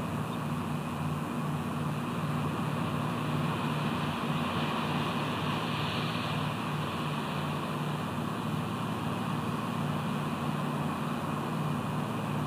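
Steady low hum under a continuous hiss, with a slight swell in the hiss about five seconds in.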